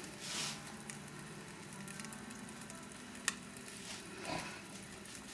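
Faint, steady sizzling of an omelette cooking in butter in a lidded frying pan over low heat. A single sharp click a little past three seconds in.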